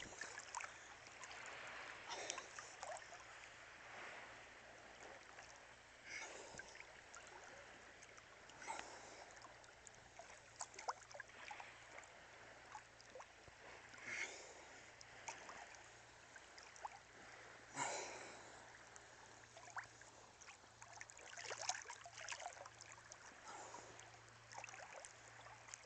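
Faint sea water splashing and trickling, with a soft splash every two to three seconds.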